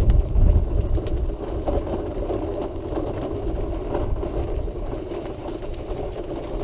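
Wheelchair rolling along a path: a steady mechanical hum with rumble from the wheels, heavier low rumble in the first half second.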